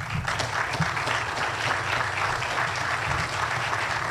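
An audience applauding: many people clapping at once in a steady, dense patter.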